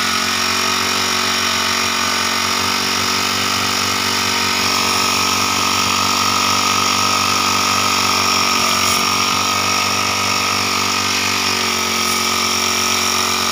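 Small four-stroke engine of a portable power sprayer running steadily at a constant speed, driving the spray pump.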